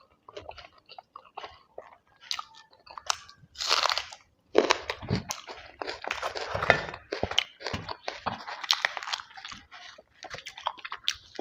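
Close-miked eating sounds: a person chewing and crunching food with wet mouth clicks, busiest in the middle of the stretch.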